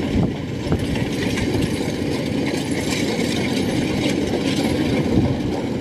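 Rice combine harvester running steadily as it drives through and cuts standing rice, engine and machinery at a constant, even pace.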